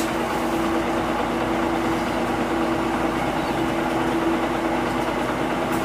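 Mitsubishi Fuso QKG-MP38FK city bus running, heard from inside the bus: an even engine hum with two steady tones that hold one pitch throughout.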